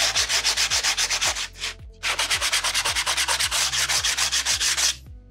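Hand-held sheet of 80-grit sandpaper rasping over the rough edge of a pine board in quick back-and-forth strokes, about eight a second, to smooth out its irregular spots. The strokes pause briefly about two seconds in and stop shortly before the end.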